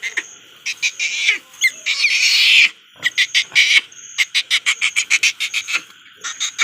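Newborn piglet squealing while being handled: a run of short sharp squeals, one long loud squeal about two seconds in, then a fast string of short squeals from about four seconds.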